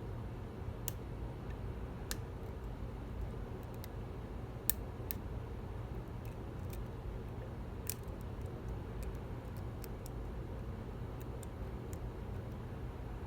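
Small, irregular metallic ticks of a lock pick moving against the pins inside a Goal D9 nine-pin dimple lock, over a steady low hum.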